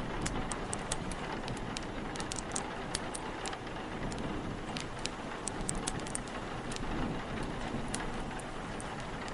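Steady rain and wind with a fire crackling over them: frequent sharp, irregular crackles, thickest about two to three seconds in and again around five to six seconds in.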